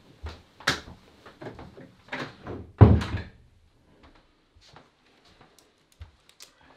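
Panelled interior door being handled and shut, with several knocks and clicks and then one loud thud about three seconds in, followed by a few faint knocks.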